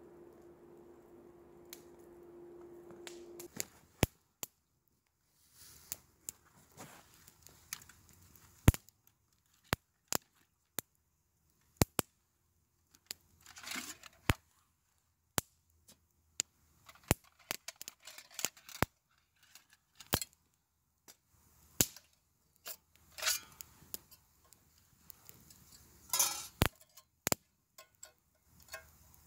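Wood campfire popping and snapping: sharp, irregular cracks every second or so, with a few short bursts of rustling between them.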